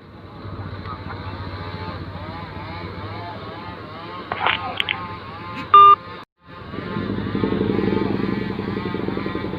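Fishing boat's Fuso diesel engine running steadily, heard through its exhaust. A short loud beep sounds a little before the middle. The sound then cuts out briefly and comes back louder.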